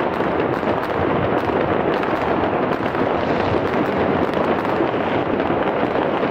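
Many fireworks and firecrackers going off at once, a dense, steady crackle of bangs with no single blast standing out.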